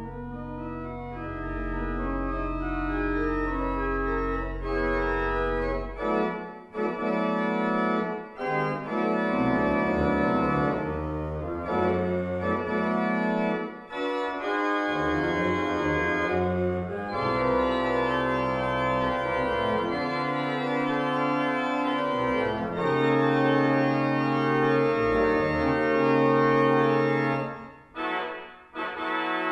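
Lewis church pipe organ playing a loud piece: a deep pedal note held beneath the chords for about the first six seconds, then full moving chords with short breaks between phrases.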